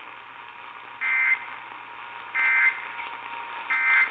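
Emergency Alert System end-of-message data burst heard over AM radio reception: three short, identical buzzy two-tone digital chirps about 1.3 seconds apart, signalling the end of the alert. Steady radio hiss with a faint constant whistle runs underneath.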